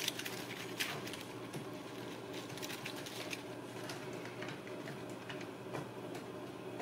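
Scattered light clicks and rustles of kittens pawing and playing on a rug, busiest in the first few seconds, over a steady low hum.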